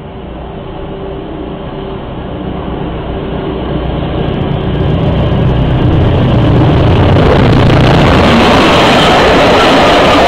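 Hastings diesel-electric multiple unit approaching and passing close by, its English Electric diesel engine and wheels on the rails getting steadily louder until it is loud and steady from about seven seconds in.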